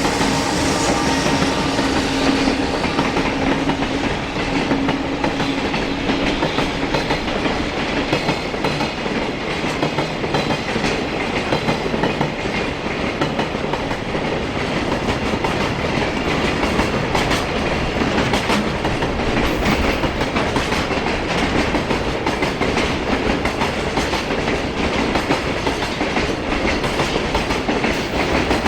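Container freight train passing close by, the wheels of its container flatcars clacking steadily over the rail joints. A low hum at the start fades away over the first few seconds.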